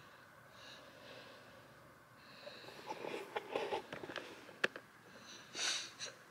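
Faint rustling of bedding and handling noise, with a sharp click a little past the middle and a short sniffing breath near the end.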